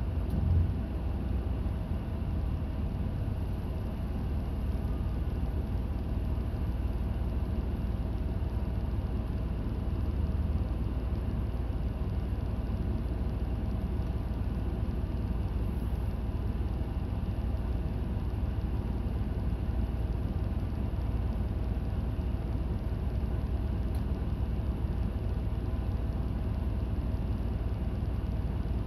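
Inside a route bus while it drives: steady engine hum and road rumble. There is one brief thump about half a second in.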